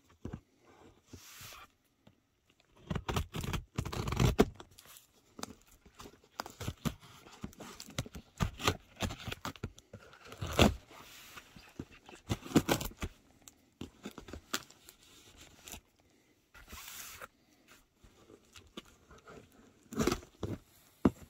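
A battered, taped-up cardboard box being handled and opened: irregular bursts of scraping, tearing packing tape and crunching cardboard, with short quiet gaps between.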